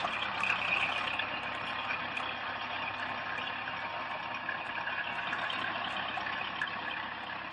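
Farm tractor engine running steadily under heavy load as it drags a big load of logs, heard with a steady noisy hiss.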